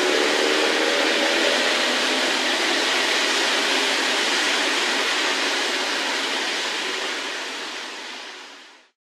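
A steady rushing noise, with faint held tones under it in the first couple of seconds, slowly getting quieter and fading out near the end.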